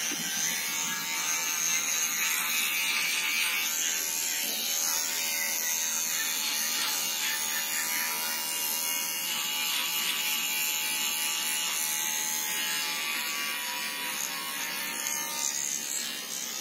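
Electric hair clipper running with a steady buzz as it trims the hair along the nape of the neck.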